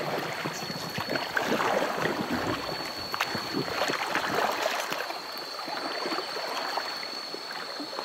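River water splashing and gurgling around a raft as it moves along the river, in many small irregular splashes. A steady thin high whine runs underneath.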